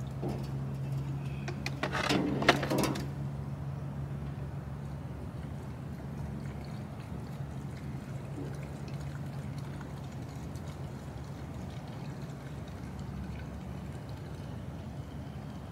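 Fuel being poured into the tank of a handheld gas leaf blower, with a few clicks and knocks of the container and tank about two seconds in, over a steady low hum.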